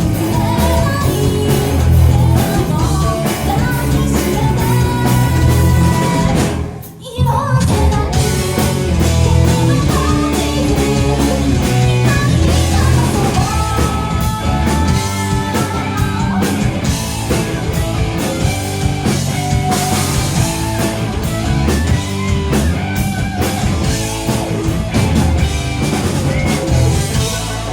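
Live rock band playing a J-pop anime theme: drum kit, electric guitars and bass. The band stops for a moment about seven seconds in, then comes back in together.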